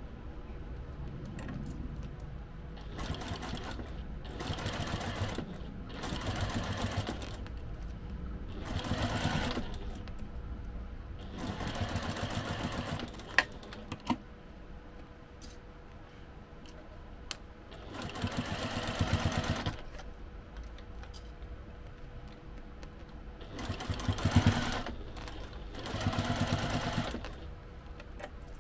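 Sewing machine stitching in short runs, about eight bursts of a second or two each with pauses between, machine-basting the layers of the case together. Two sharp clicks about halfway through.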